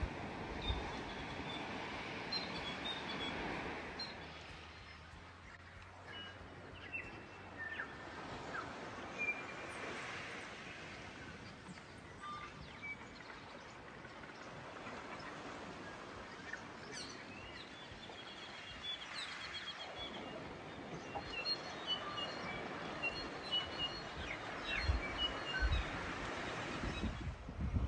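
Birds calling, many short chirps and whistled notes scattered throughout, over a steady background hiss that swells and fades.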